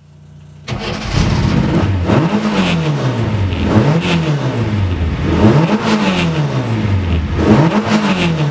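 A classic rally car's engine being revved in four repeated throttle blips, each rising quickly in pitch and then falling away slowly.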